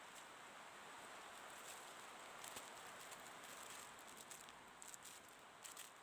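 Near silence: faint room tone with a soft hiss and scattered light ticks.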